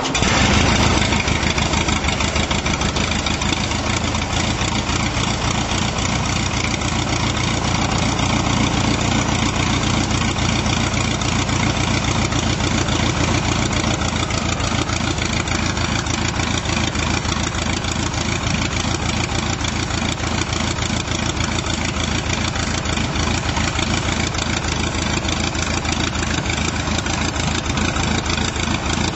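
Stampe-Vertongen SV-4 biplane's engine catching right at the start and then running steadily at idle on the ground, propeller turning.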